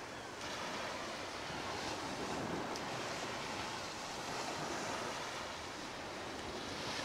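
Steady rushing noise of sea waves washing onto the beach, with wind.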